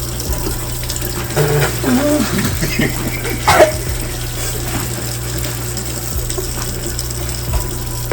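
A person whimpering and crying out in pain from the burn of an extremely spicy chip, with a sharp yelp about three and a half seconds in, over a steady rushing background noise.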